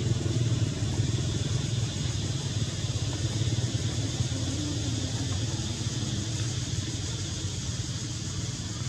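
Steady low rumble of a running motor, even throughout.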